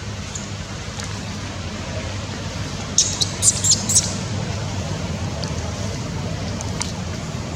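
A baby monkey giving a quick run of short, high-pitched squeaks about three seconds in, over a steady hum of road traffic.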